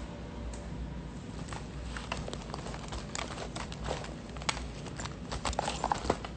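Handling and rummaging noise close to a phone's microphone: a run of light clicks, taps and rustles starting about a second and a half in, busiest and loudest near the end, over a low room hum.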